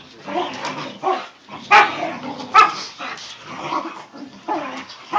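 Clumber spaniel puppies barking during rough play-fighting, a string of short barks and yips with two loud sharp barks a little under a second apart about two seconds in.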